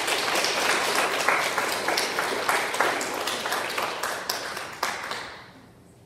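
An audience of schoolchildren applauding, many hands clapping together, then dying away about five seconds in.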